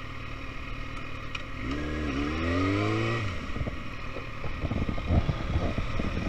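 Motorcycle engine revving up, its pitch rising for about a second and a half as the bike accelerates. Then, about two-thirds of the way in, a run of irregular knocks and clatter begins.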